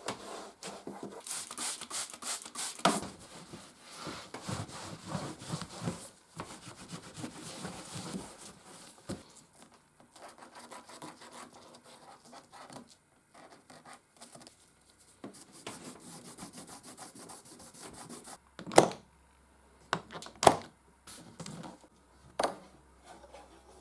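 Rapid scrubbing and rubbing on typewriter parts being cleaned, which dies away after about eighteen seconds. Three sharp clicks follow, a second or two apart.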